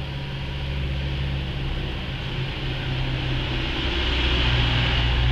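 A steady low hum with a hiss, slowly getting louder.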